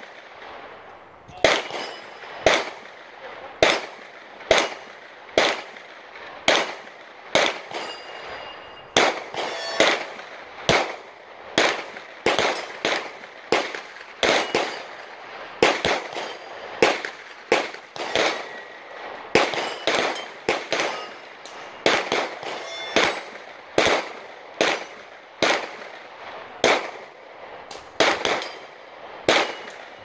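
Gunfire from several shooters at a busy shooting range: an irregular stream of sharp reports, about one or two a second, some close together, a few followed by a brief ringing tone.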